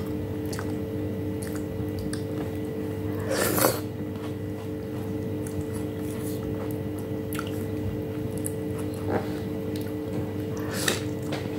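Close-up eating sounds of someone chewing soft boiled eggplant eaten by hand: scattered wet smacks and clicks of the mouth, with one louder smacking sound about three and a half seconds in. A steady low hum runs underneath.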